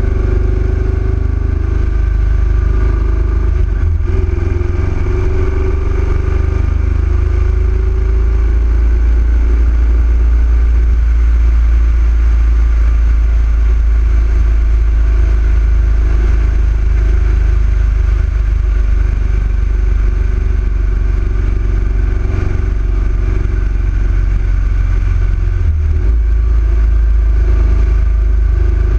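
Yamaha XV1900 V-twin motorcycle running at a steady cruising speed, a continuous deep rumble with no change in revs.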